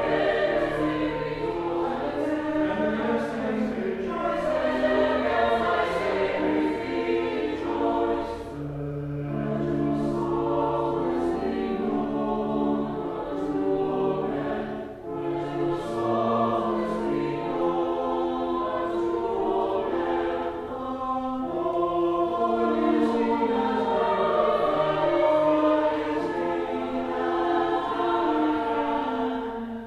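Church choir singing an anthem in several voice parts at once, the sung notes held and moving together.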